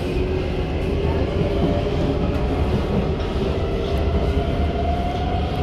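Inside a C151 metro train fitted with permanent-magnet synchronous traction motors, slowing along a platform: a steady electric whine from the motors over a low rumble from the running gear. A thin tone climbs slightly in pitch in the second half.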